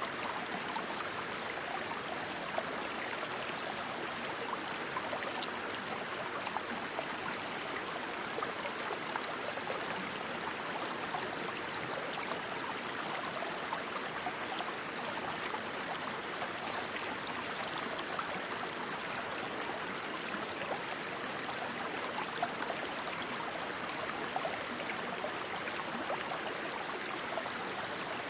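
Rushing stream water flowing steadily. Short, very high chirps recur through it, with a quick flurry about two thirds of the way in.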